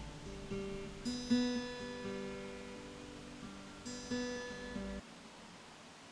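Acoustic guitar playing, with two strummed chords ringing out about a second and about four seconds in. It stops abruptly about five seconds in, leaving only faint hiss.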